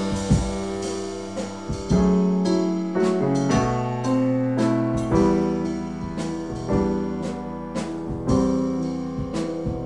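Piano music from a 1975 art-rock record: chords are struck and left to ring and fade, a new one coming about once a second, with no singing.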